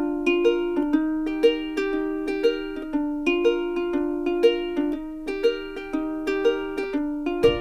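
Background music: a bright, bouncy ukulele tune with evenly plucked notes at a steady beat.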